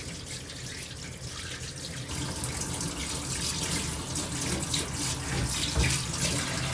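A kitchen tap runs into a sink, the flow getting louder about two seconds in.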